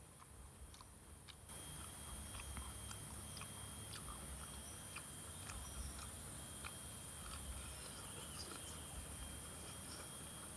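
A person chewing food, with small scattered crisp clicks and mouth sounds. A steady high hiss sets in about a second and a half in.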